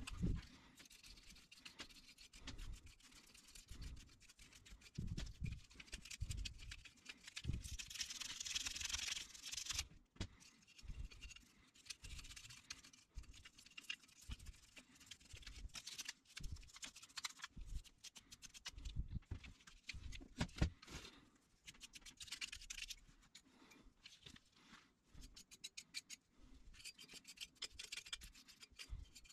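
An old car battery charger's transformer and wires being handled and turned over by hand, making irregular scratching, rubbing and light knocks, with a longer scratchy stretch about eight seconds in.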